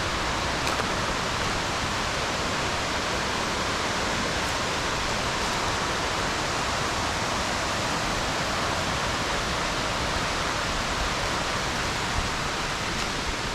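Waterfall pouring steadily, an even, unbroken rush of falling water.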